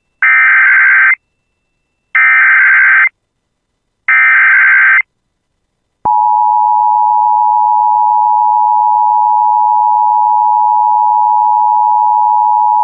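Emergency Alert System alert opening: three short bursts of SAME digital header data, each about a second long and a second apart, then about six seconds in the steady two-tone EAS attention signal (853 and 960 Hz) starts and holds. It announces an emergency broadcast, here a tornado warning.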